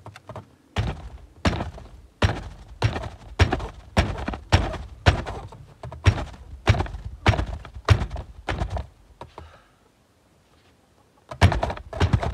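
Repeated thuds of a gloved hand pounding on the ice-frozen door of a wooden chicken coop to break it loose, about two blows a second. The blows stop for a couple of seconds near the end, then start again.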